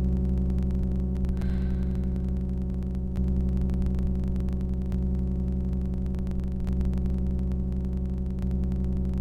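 Low, steady droning music, a dense hum of stacked tones that shifts slightly about every second and a half or so, with a faint brief higher tone about one and a half seconds in.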